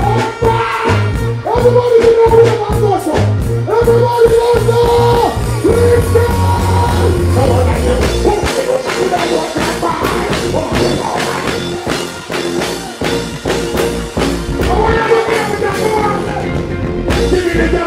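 Live dancehall music over a concert PA: a heavy bass line and a steady drum beat, with a deejay singing held, bending notes over it.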